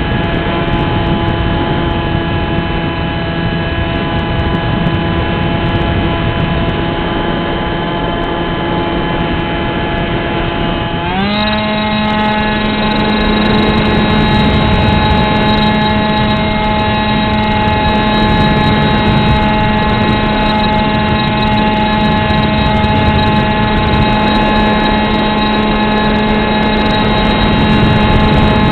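Onboard sound of a Beta 1400 radio-controlled model plane in flight: its electric motor and propeller whine steadily over a rush of wind noise. About eleven seconds in, the pitch rises quickly as the throttle is opened, then holds at the higher pitch.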